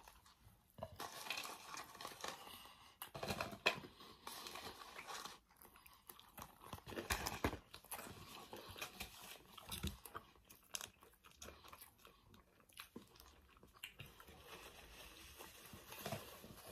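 Faint chewing and biting of two people eating a stacked meat sandwich and curly fries, with irregular soft crunches and mouth clicks.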